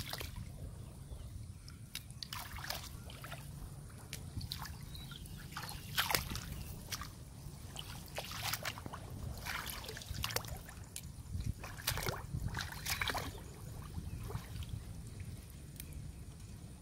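Shallow muddy water sloshing and splashing around hands and legs as trailing water plants are pulled up by their roots, in irregular short splashes and snaps over a low steady rumble.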